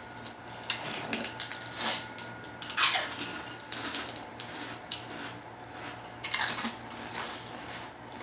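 Eating by hand from a foil-lined tray: irregular short crinkles and rustles of aluminium foil and handling of the food, with chewing and lip-smacking mouth noises.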